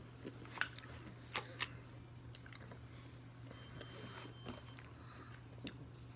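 Mouth sounds of someone chewing a sour snack: a few sharp wet clicks and smacks within the first two seconds, then softer chewing ticks.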